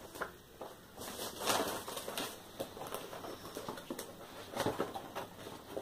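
Paper leaflets and a cardboard box being handled: scattered rustles and light knocks. The louder ones come about a second and a half in and again past four seconds.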